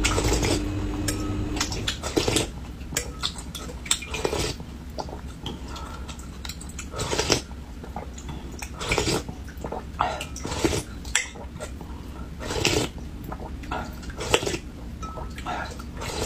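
Metal spoon clinking and scraping against a glass bowl as egg-and-greens soup is spooned up, with a slurp every second or two as soup and noodle strands are sucked from the spoon, and chewing in between.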